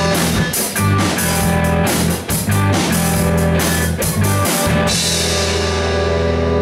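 Live rock band, electric guitars and drum kit, playing loudly with regular drum hits. About five seconds in the drums stop and the guitars are left ringing on a held chord, the close of the song.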